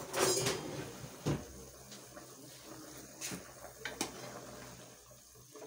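Kitchenware being handled on a stovetop: a short scrape at the start, a knock about a second in, then a few light clicks, over a low steady hum.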